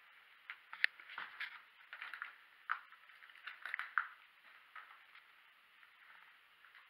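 Faint, irregular clicks and crunches of footsteps on a debris-strewn floor, thickest in the first few seconds and thinning out after.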